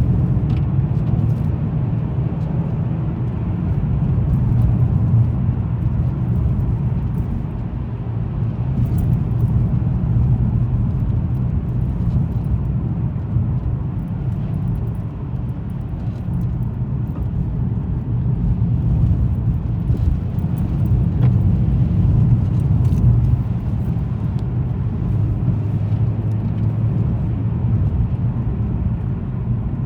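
Car driving at a steady speed: a continuous low rumble of engine and tyres on the road, with a few faint ticks.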